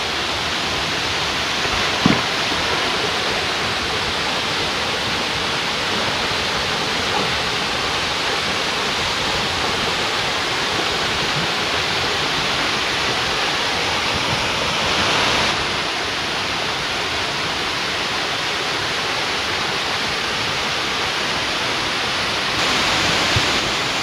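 Small waterfall pouring over rock slabs into a plunge pool: a steady rush of water. It swells briefly about fifteen seconds in and again near the end, with a single knock about two seconds in.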